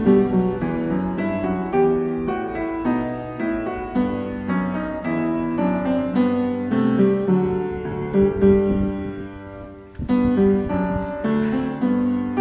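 Background piano music: a gentle melody of single notes and chords that fades out just before ten seconds in, then starts again.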